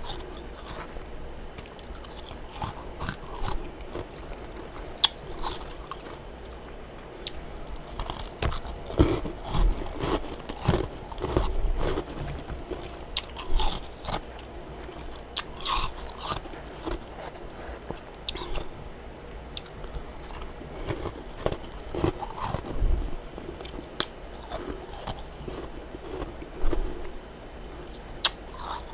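A person biting and chewing crunchy freezer frost, with irregular crisp crunches that come thickest about eight to twelve seconds in and again a little past twenty seconds.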